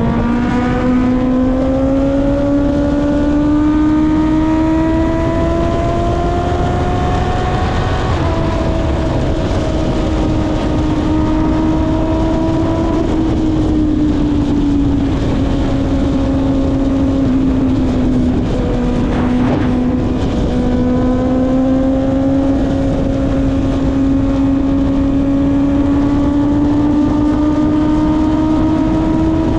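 Honda CB650R inline-four engine through an Akrapovic exhaust under way. It pulls up through the revs, drops quickly in pitch on an upshift about eight seconds in, eases off for a few seconds in the middle, then slowly builds again, with wind rushing past.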